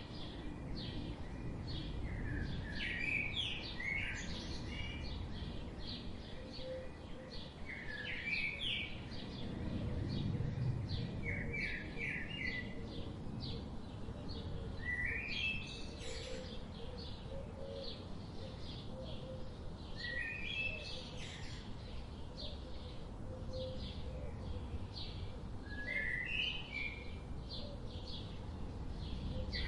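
Small birds chirping: a dense run of short, quick chirps with a rising note every few seconds, over steady low background noise.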